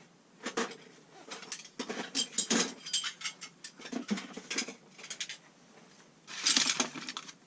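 Metal hand tools being handled and set down: a run of irregular clicks, clinks and rattles, with a louder clatter near the end.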